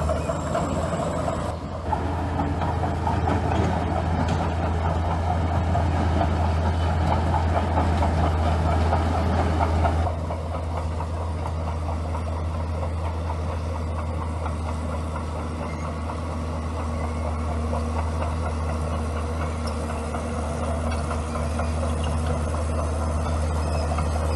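Bulldozer's diesel engine running steadily. It gets louder about two seconds in and drops back suddenly about ten seconds in.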